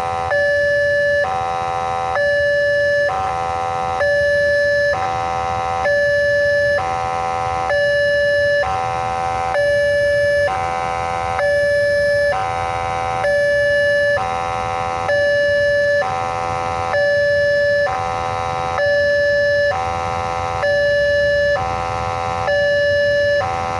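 Railroad level-crossing warning siren alternating between two tones, each held a little under a second, over and over. Its tone is hoarse.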